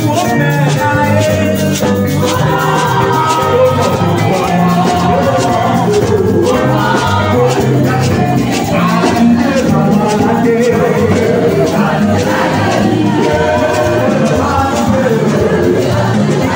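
Church choir and lead singers singing into microphones over a live band, with a moving bass guitar line and steady hand-drum percussion.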